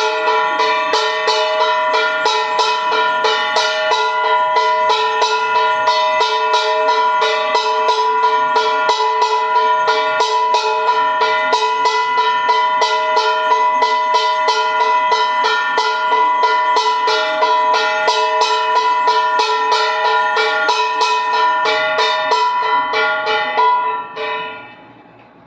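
Instrumental music with a quick, even beat of plucked or struck notes over steady held pitches, fading out near the end.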